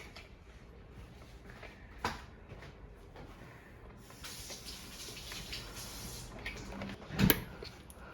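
Hands fitting a replacement inverter module into a refrigerator: a sharp click about two seconds in, a few seconds of rustling and scraping, then a louder knock near the end.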